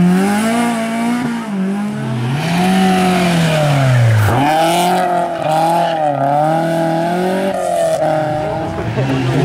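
Rally car engines revving hard past the spectators, the engine note climbing and dropping again and again with each gear change and lift of the throttle: first an Opel Kadett C, then a BMW E30 3-series.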